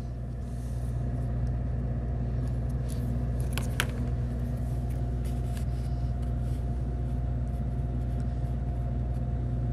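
A steady low machine hum, with a few light clicks about three and a half seconds in as balsa sticks and a hobby knife are handled on a cutting mat.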